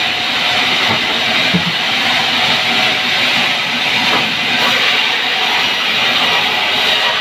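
Vertical band sawmill running, a loud steady noise from the blade and its drive, with a brief low knock about a second and a half in.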